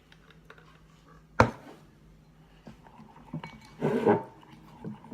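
A sharp clink of a mixing utensil striking the mixing bowl about a second and a half in, then a longer burst of knocking and mixing noise around four seconds in.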